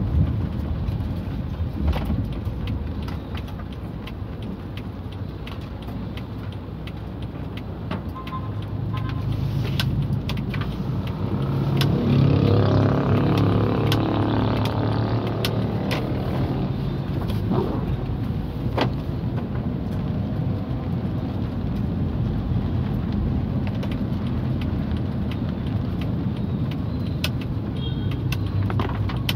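Car interior noise while driving on a wet road in rain: a steady engine and tyre hum with many light, sharp ticks of raindrops hitting the car. About a third of the way in, an engine grows louder for several seconds, then fades back into the hum.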